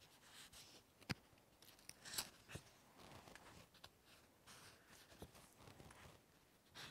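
Near silence: quiet room tone with a few faint clicks and rustles of card flashcards being swapped by hand.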